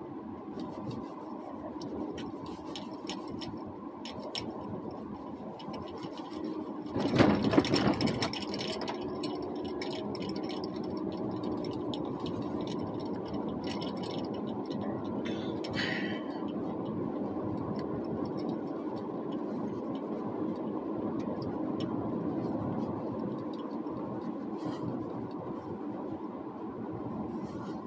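Car driving over snow-packed streets, heard from inside the cabin: steady engine and tyre noise. A louder burst of rattling and knocks comes about seven seconds in, and a short scrape follows just before halfway.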